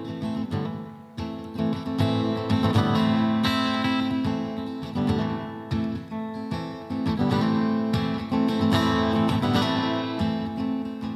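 Acoustic guitar strumming chords in a steady rhythm: the instrumental intro of a solo acoustic song.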